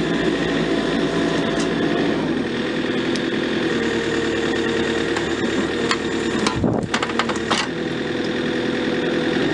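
JCB 3CX backhoe loader's diesel engine running steadily, its note dropping a little about two seconds in. A few sharp knocks and clicks come about six to eight seconds in.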